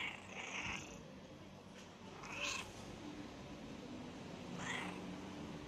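Calico cat meowing three short times: at the start, about two and a half seconds in, and near the end.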